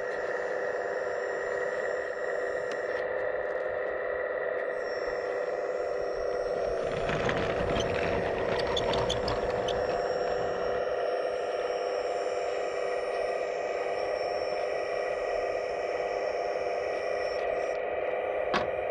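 Electric hydraulic pump of a 1/15-scale RC excavator running with a steady whine. About seven seconds in comes a few seconds of louder scraping with clicks, and a single sharp click near the end.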